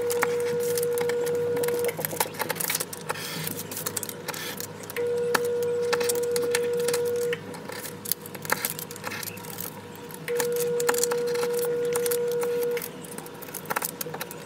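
A steady electronic beep held about two and a half seconds, sounding three times roughly five seconds apart. Under it, light scratching and clicking of a craft knife blade on paper.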